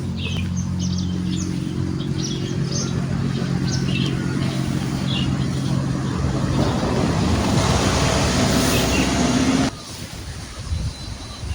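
A vehicle engine running at a steady pitch, then a louder rushing noise that builds for about three seconds and cuts off suddenly near the end.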